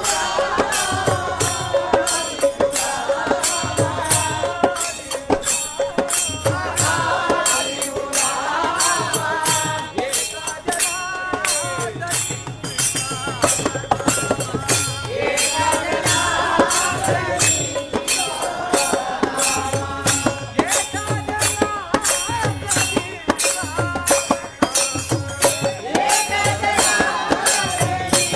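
Group devotional bhajan singing in unison to a quick beat of small hand cymbals clashing steadily and a two-headed barrel drum.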